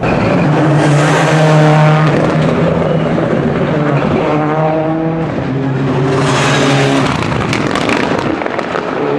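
Rally cars, a Subaru Impreza and then a Mitsubishi Lancer Evolution, driving through a corner at speed. Their engines run at high revs, the pitch rising and dropping with throttle and gear changes, in two loud passes: one early and one in the second half.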